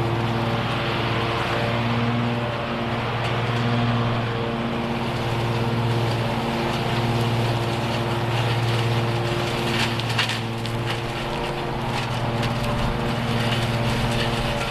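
Toro TimeCutter zero-turn mower running steadily under load while mowing and bagging fallen leaves. The engine hum wavers slightly, and a brief rush of crackling comes about ten seconds in.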